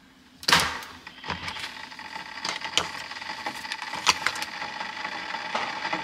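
Keurig coffee maker running with a steady hum, with a knock about half a second in and scattered light clicks, one as its top button is pressed about four seconds in.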